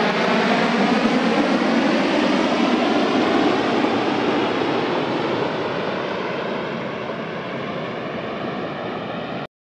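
Jet noise from the MQ-4C Triton's turbofan engine as the aircraft rolls down the runway after landing: a steady rushing jet sound that slowly fades, then cuts off suddenly near the end.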